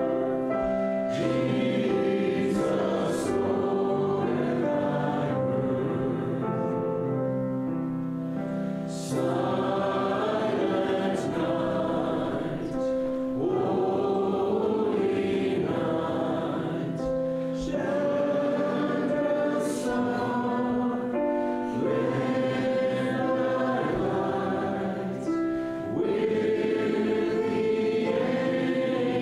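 Congregation singing a slow hymn together, with long held notes.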